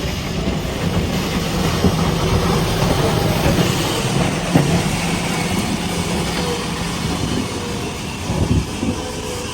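JCB 3DX backhoe loader's diesel engine running steadily at work, with a few sharp knocks.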